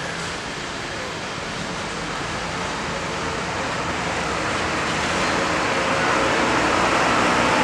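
Intercity coach bus driving slowly past at close range, its engine and running noise growing steadily louder as it nears.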